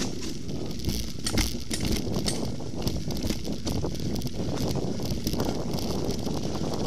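Mountain bike ridden fast over a dirt forest singletrack: a steady low rumble of the tyres and frame with frequent clicks, knocks and rattles as the bike jolts over the rough ground, thickest about one to two seconds in.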